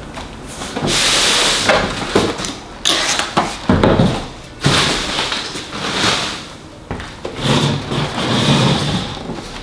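Monitor parts and plastic packaging being handled: several long stretches of rubbing and scraping, with a few knocks between them.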